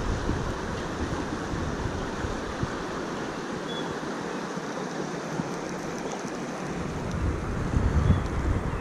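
Steady rush of a fast-flowing river, with wind buffeting the microphone at the start, dropping away about three and a half seconds in and returning near the end.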